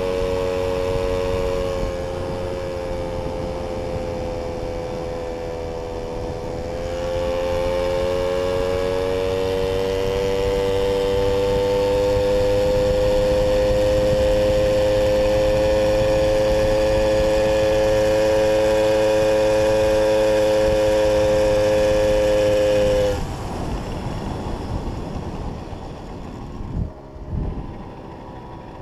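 Jawa 555 moped's small two-stroke single-cylinder engine running under throttle at road speed. It eases off slightly, pulls back up and holds a steady high note, then the throttle is shut about 23 seconds in and the engine drops to a low, uneven run as the moped slows, with a couple of low thumps near the end.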